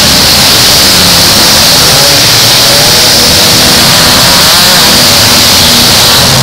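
Several demolition derby cars' engines revving and running hard together, a loud, steady mechanical din with pitches rising and falling.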